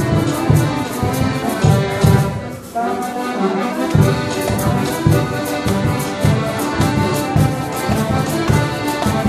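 Live amateur ensemble led by accordion, with percussion, playing a Latin-American-style dance rhythm. The low drum beat drops out for about a second and a half, a little over two seconds in, then comes back.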